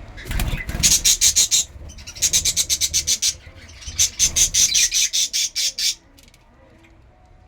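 Lovebird chicks begging: rapid pulsed calls, about ten a second, in three bursts, the last the longest, stopping about six seconds in. A low rustle comes with the start of the first burst.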